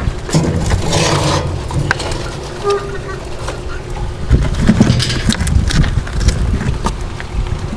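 Uneven low rumble of wind on the microphone, with a few light knocks.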